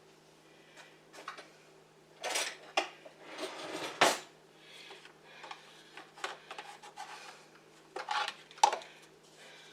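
Kitchen utensils and dishes clinking and scraping: a knife or spoon knocking and scraping against a dish while butter is portioned out, in a string of separate clicks and short scrapes with a few louder knocks.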